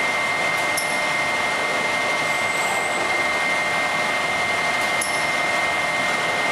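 Steady industrial machine noise from an automated robot cell working a brass faucet fitting, with a constant high-pitched whine.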